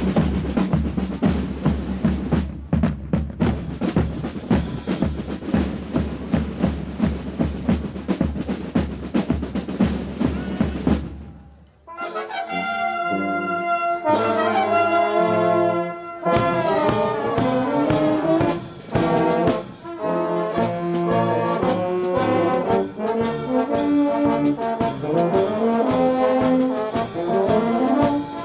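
Brass band music: brass playing over a steady, even beat. The music breaks off briefly about eleven seconds in, then starts again with held chords before the beat returns under the melody.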